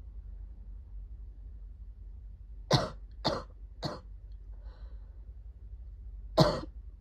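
A sick person coughing: three short coughs in quick succession, each weaker than the last, then a single louder cough a few seconds later.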